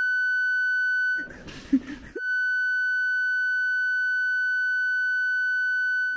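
Steady electronic censor bleep, a single pure tone that blanks out all other audio. It runs in two long stretches: the first stops about a second in, and after a short break of room noise with a click, the second starts about two seconds in and lasts some four seconds.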